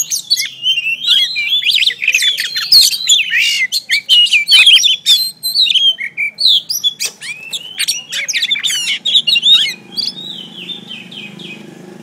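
Oriental magpie-robin singing a loud, fast, varied run of whistled and chattering notes that sweep up and down in pitch, dying away to a few softer notes about ten seconds in.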